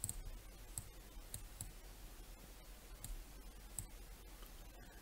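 About half a dozen faint computer mouse clicks at irregular intervals.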